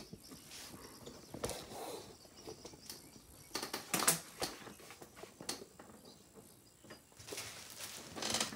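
Scattered clicks, taps and rustles of hands handling computer hardware, with the sharpest clicks about four seconds in and a longer rustle near the end.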